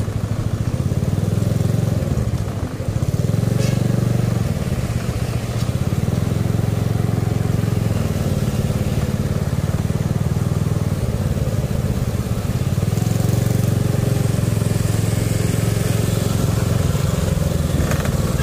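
Motorcycle engine running while riding along a city street, heard from the rider's seat, its note rising and easing off a few times with the throttle, over steady road and wind noise.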